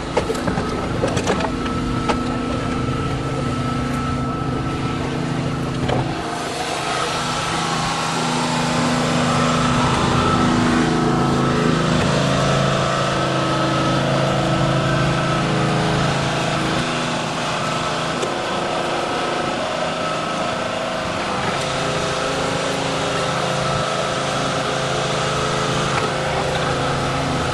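Small gasoline engine of a hydraulic rescue tool's power unit running steadily, driving the Jaws of Life during a vehicle extrication. A few sharp clicks in the first couple of seconds, and the engine gets somewhat louder for a few seconds around the middle.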